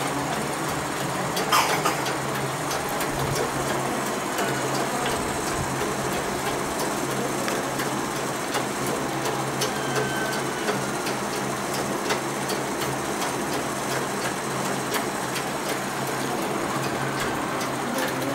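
Black treadle sewing machine running steadily as it stitches cloth: a continuous whir with scattered light clicks, one louder click about one and a half seconds in.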